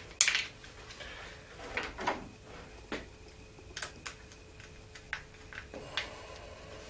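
Plastic clicks and light knocks from a UK three-pin mains plug being closed up and its cover screw tightened with a screwdriver: one sharp click just after the start, then scattered lighter clicks through the rest.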